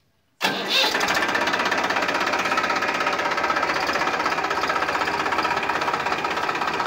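Massey Ferguson tractor's diesel engine comes in suddenly about half a second in, then runs loud and steady with a fast, even chugging pulse.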